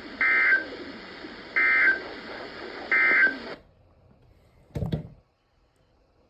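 Three short bursts of EAS SAME digital data, the end-of-message code that closes an emergency alert broadcast, each a harsh warble about a third of a second long, about 1.4 s apart, over a steady broadcast hiss. The hiss cuts off suddenly after the third burst, and a single short thump follows about a second later.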